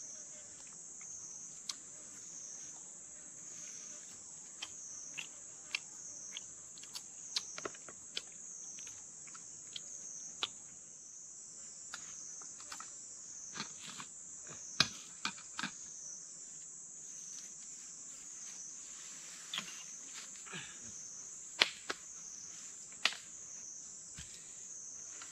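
Insect chorus shrilling steadily at one high pitch, wavering slightly, with scattered light clicks and knocks over it.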